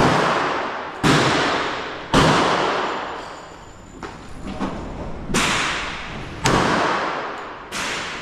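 Gunshots echoing in an indoor shooting range: three shots about a second apart, a pause with a few faint clicks, then three more, the last one weaker, each shot followed by a long echo.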